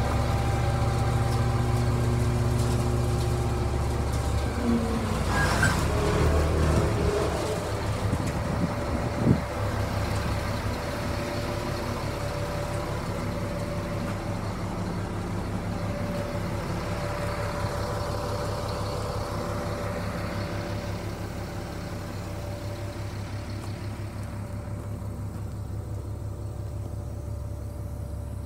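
A 1999 GMC C7500 grain truck's engine idling steadily, with a single sharp knock about nine seconds in. The idle grows somewhat quieter over the second half.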